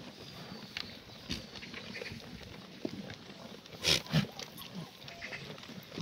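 Black goats crowding a hay feeder: hay rustling and short animal grunts, with two loud, short sounds close together about four seconds in.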